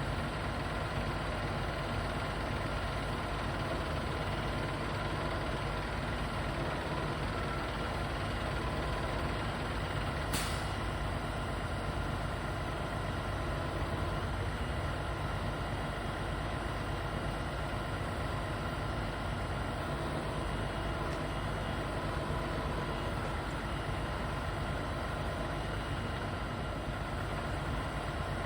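Boom truck's engine running steadily, with one sharp click about ten seconds in.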